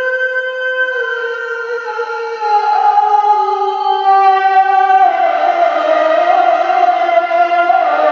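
A male Quran reciter chanting in the melodious tilawah style through a microphone. He holds long notes that step down in pitch, then rises to a louder, wavering high note about five seconds in.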